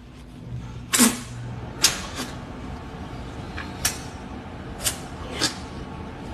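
Wet slurps and sucks of a person eating a ripe, juicy mango straight from the fruit: about six short, sharp mouth sounds, roughly one a second.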